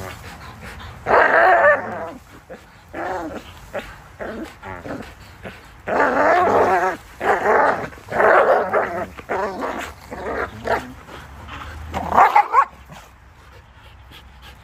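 Belgian Malinois growling and barking in play as they tug and wrestle over a rope toy, in several loud bouts of about a second each, the longest run from about six to nine seconds in.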